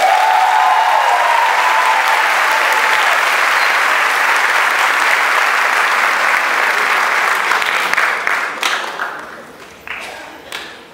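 Theatre audience applauding, with a few long cheers held over the first few seconds. The clapping fades away over the last few seconds.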